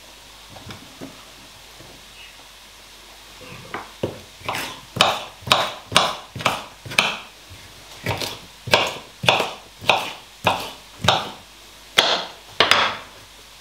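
Kitchen knife chopping bell peppers on a chopping board: after a few quiet seconds of light taps, steady chops about two a second start roughly four seconds in, with a brief pause midway.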